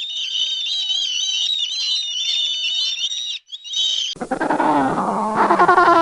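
Animal calls: a high-pitched, warbling chorus for the first few seconds, then, after a short break and a cut about four seconds in, a different set of lower calls that bend in pitch.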